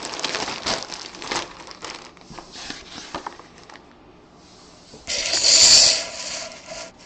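Plastic packaging crinkling and rustling as it is handled, with a louder, longer rustle about five seconds in.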